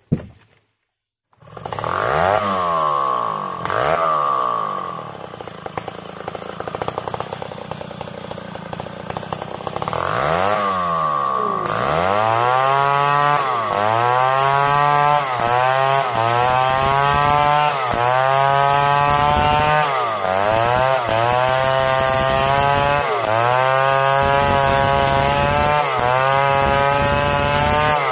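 Stihl 070 two-stroke chainsaw ripping lengthwise along a squared log. After a short gap at the start the engine revs up and down, then from about halfway it settles into a steady cycle: its pitch dips under the load of the cut and recovers roughly every one and a half seconds.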